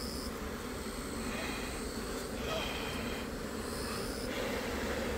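A colony of Korean native honeybees (Asian honeybees) humming steadily around the opened hive.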